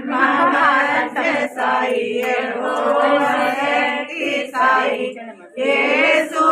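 A group of voices singing a devotional Sai bhajan together in Hindi.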